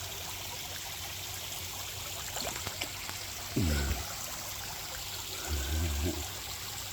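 Steady trickle and splash of water from a pond fountain, with two short low voice-like sounds about halfway through and near the end.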